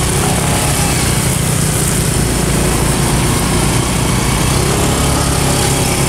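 Small motor scooter engines running steadily at low speed, a continuous hum with a haze of noise, heard from a bike on a rough dirt track.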